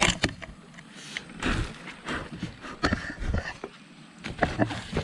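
Dry leaves rustling and crackling as a cooked leaf-wrapped parcel of food is handled and opened, with irregular small clicks and scrapes.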